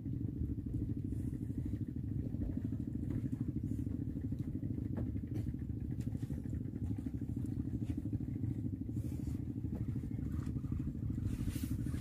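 Small wooden fishing boat's engine running steadily, a continuous low drone.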